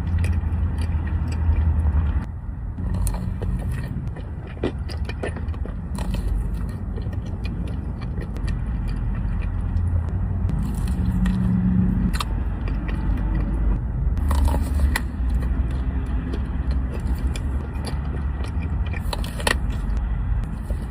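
Close-miked eating of soft desserts: biting and chewing with scattered sharp clicks and scrapes, over a steady low rumble.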